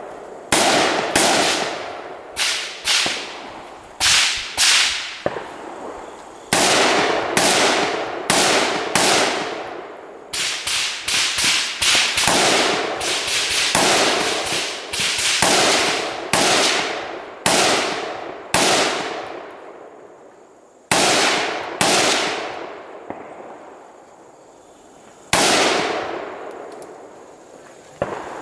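AR-15 rifle fired in a rapid, irregular string of roughly thirty shots, each cracking and then dying away in an echoing tail. The shots come close together for most of the string, then spread out into a few single shots near the end.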